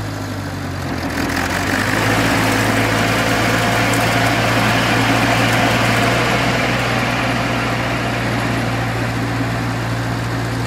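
1948 Farmall Cub's four-cylinder flathead engine running steadily as its belly-mounted rotary mower is engaged. From about a second in, a rising whir from the spinning mower drive and blade joins the engine and carries on.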